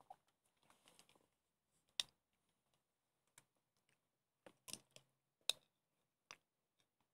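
A handful of faint, sharp clicks and taps, spaced irregularly, with a brief soft rustle near the start, over near silence.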